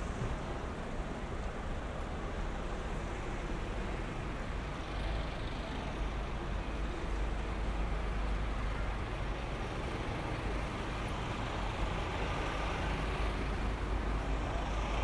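Street traffic standing and creeping along, with the engines of cars and a large articulated lorry running close by: a steady low rumble with a wash of general road noise.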